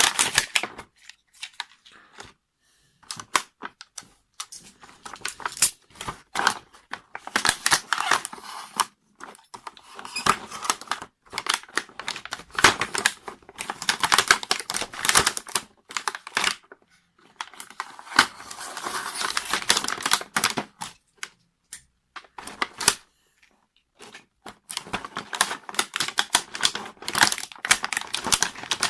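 Small plastic toy construction vehicles being handled and taken out of their packaging: quick clicks and clacks of hard plastic, with spells of rustling and crinkling.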